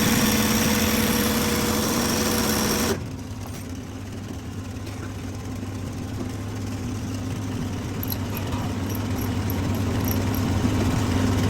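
An engine running steadily with a low hum. About three seconds in, the sound changes abruptly to a quieter, duller hum that slowly grows louder.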